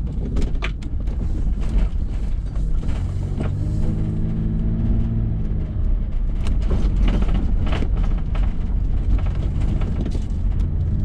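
Toyota 4Runner on the move: a steady rumble of road and running gear with the engine note, which swells and eases about four seconds in as the truck turns off the pavement onto a sandy dirt road. Scattered sharp knocks come from the body and suspension, the newly fitted Bilstein shocks, working over the bumps.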